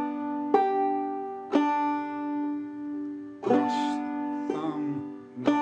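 Banjo played clawhammer (frailing) style, slowly: single struck notes and a brushed strum across the strings, a second or two apart, each left to ring.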